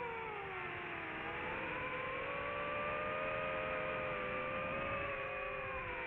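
DJI FPV drone's motors and propellers whining. The pitch falls in the first second or so, climbs back and holds steady, then falls again near the end as the throttle changes.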